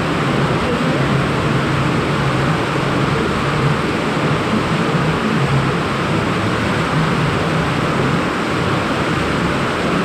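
Steady rush of water flowing down a canalised stream's culvert, foaming past a flexible cofferdam and diversion pipe, inside a stone-vaulted tunnel.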